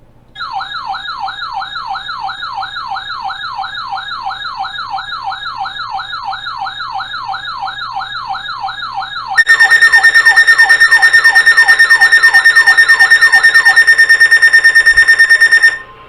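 Electronic siren wailing in quick falling sweeps, about two and a half a second. About nine seconds in, a much louder, rapidly pulsing high tone joins it, and both cut off suddenly shortly before the end.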